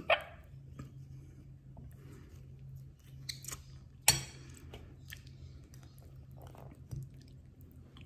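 A person chewing food close to the microphone, soft wet mouth sounds with a few short sharp clicks, the loudest about four seconds in, over a low steady hum.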